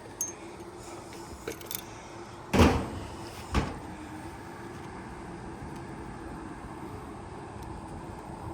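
Caulking-gun work on roof shingles: a few light clicks, then two louder knocks about a second apart, over a steady faint hum.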